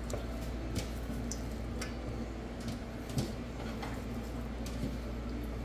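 Light clicks and taps of kitchen handling as sliced onion goes into a stainless steel bowl with a fork resting in it, over a steady low hum. A slightly louder soft knock comes about three seconds in.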